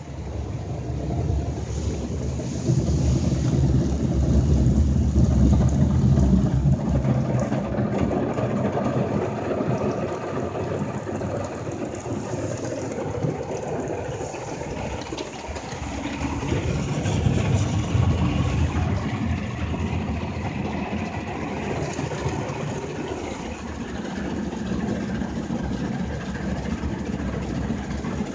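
Ryko Voyager II automatic car wash working over the car, heard from inside the cabin: a steady low rumble with water and wash brushes beating on the body and glass. It swells louder a few seconds in and again past the middle.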